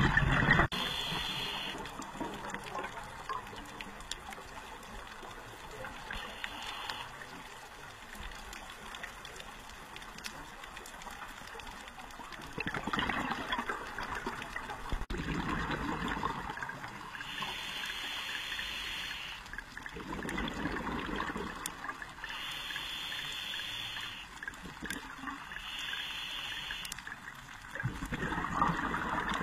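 Scuba diver breathing through a regulator underwater: a short hiss on each inhale, then a rushing gurgle of exhaled bubbles, repeating every few seconds.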